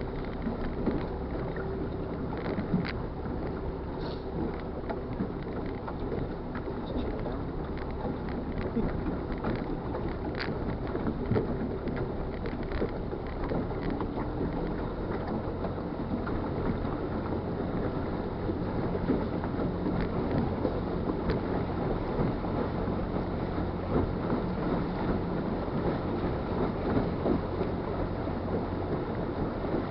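Motorboat underway: its engine hums steadily beneath a constant rush of water along the hull and wind buffeting the microphone.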